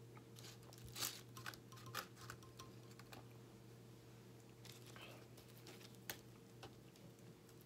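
Scattered soft clicks and taps as a glass is set down on the table and a bagel sandwich is picked up off its foil-lined paper wrapper, over a faint steady hum.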